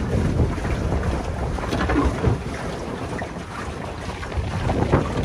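Wind buffeting the microphone out on open water from a pedal boat, a steady low rumble with no clear separate events.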